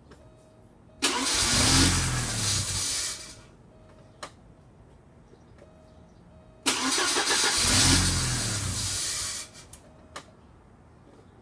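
Porsche 944 Turbo (951) inline-four turned over on its starter twice, each crank lasting about two to three seconds, with a click after each, and the engine not catching: a no-start after a head gasket replacement.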